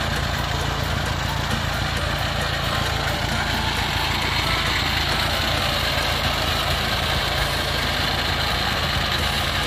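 Engine of a tracked rice-hauling carrier idling steadily.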